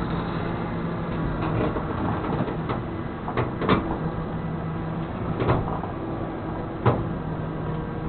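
Flatbed tow truck's engine running steadily, with several sharp knocks and rattles over it, the loudest near the middle and again about seven seconds in.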